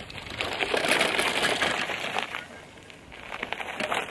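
Power wheelchair rolling over loose gravel: its solid rubber tires crunch and pop over stones with a dense clatter. The crunching eases for a moment about three seconds in, then picks up again.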